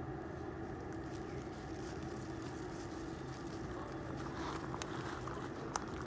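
A steady low mechanical hum, like an engine running at a distance. From about four seconds in it is joined by rustling and small clicks as baby macaques scramble over dry leaves and dirt, with one sharp click near the end.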